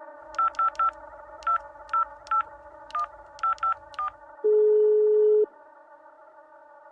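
A number being dialed on a touch-tone telephone: ten short dialing beeps in groups of three, three and four, followed by a single steady tone lasting about a second, over a steady low hum.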